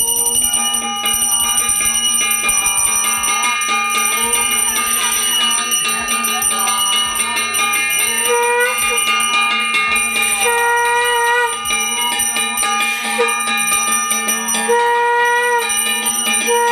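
A puja hand bell ringing continuously in quick strokes during the worship. From about halfway, a separate held tone sounds several times, each lasting about a second.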